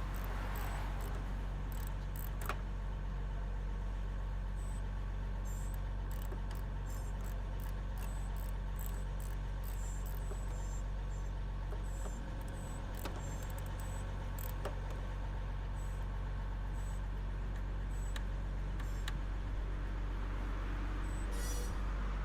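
A vehicle engine idling steadily as background noise, a constant low hum, with scattered light clicks and taps over it.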